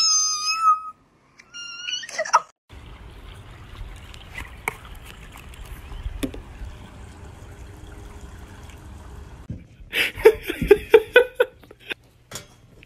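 A cat's very high-pitched meow held about a second, then a second, shorter rising meow. Then several seconds of steady low background noise, and near the end a quick run of short voice-like sounds.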